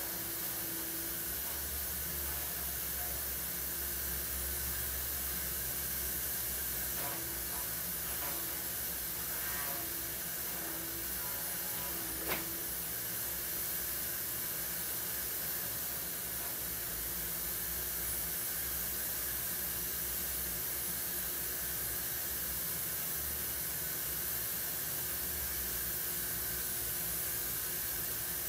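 Steady hiss of room tone, with one short click about twelve seconds in.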